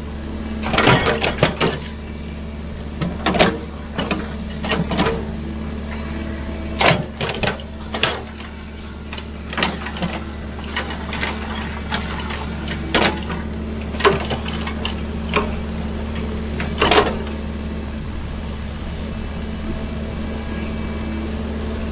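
Heavy excavator engine running steadily, with irregular sharp knocks and metallic clanks from the working machine. The knocks come in a cluster about a second in and are spread through the middle, and the last few seconds hold only the steady engine.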